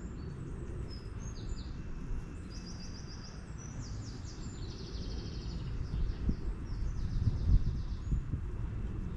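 Garden birds chattering in quick high rattling, clicking chirps, over a steady low rumble that grows louder in the second half.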